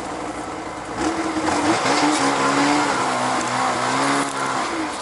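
Gas engine of a frame-mounted power ice auger running, revving up about a second in and holding a high steady speed, then dropping back near the end, as the auger is drawn up out of the freshly drilled hole.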